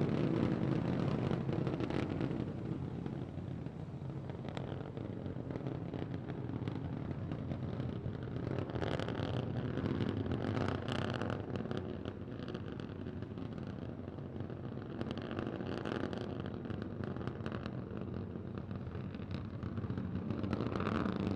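Three Raptor engines of a SpaceX Starship prototype (SN15) burning during its ascent, heard as a steady rumble with scattered crackling.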